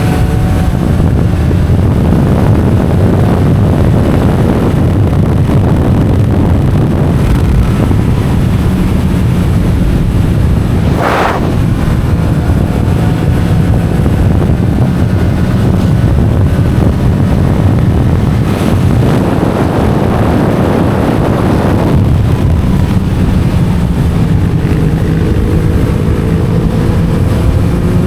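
Yamaha MT-07's parallel-twin engine with an Akrapovic titanium exhaust pulling steadily under way, with wind rushing over the microphone. The engine pitch climbs near the start and again near the end, and there is a brief noisy gust about eleven seconds in.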